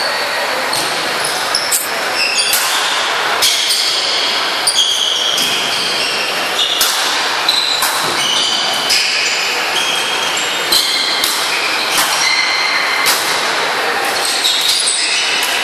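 Badminton play in a large hall: sharp racket strikes on the shuttlecock every second or so. Short high squeaks from sports shoes on the wooden court floor come between the strikes.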